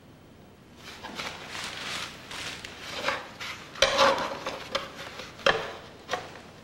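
Paint being worked on the canvas by hand, a run of rough rubbing and scraping strokes with two sharp knocks about four and five and a half seconds in.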